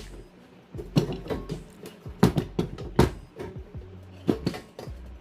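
Irregular sharp clicks and metallic knocks of an amplifier unit and tools being handled on a workbench, with background music.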